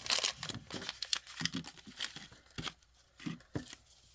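Crinkly packaging handled by hand: a run of short rustles, crackles and small clicks, loudest near the start.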